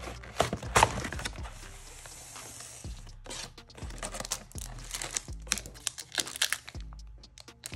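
Foil booster-pack wrapper of a trading card game being crinkled and torn open by hand: runs of sharp crackles and rustles, loudest about a second in and again over the middle of the stretch.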